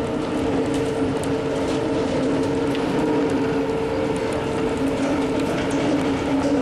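Bucket wheel excavator machinery running steadily: a continuous mechanical hum with two held tones, over which light metallic clicks and rattles come and go.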